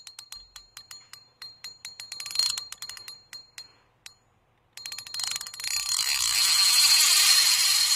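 A quick run of light clicks with a faint ringing tone, about five a second, stops about four seconds in; after a short gap a steady hiss comes in and holds.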